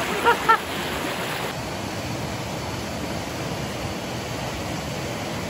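River water rushing steadily, an even unbroken noise, with two short pitched calls right at the start.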